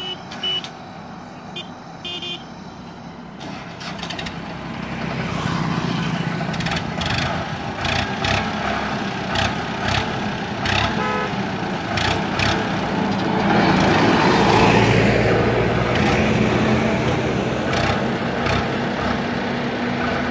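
Indo Farm 3048 DI tractor's diesel engine running under the load of two fully loaded sugarcane trolleys, growing louder as it draws near and loudest about two-thirds through, with scattered knocks and rattles. Brief horn toots sound near the start.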